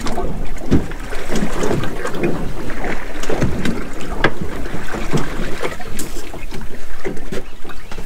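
Water slapping and knocking irregularly against the hull of a small drifting boat, with wind buffeting the microphone.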